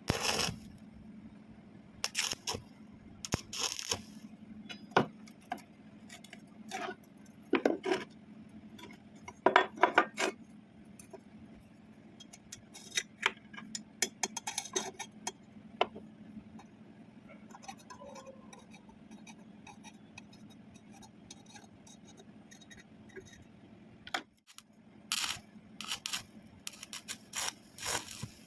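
Pieces of steel square tubing being handled: irregular metal clinks and short scrapes as they are set down and slid against each other, over a faint steady hum.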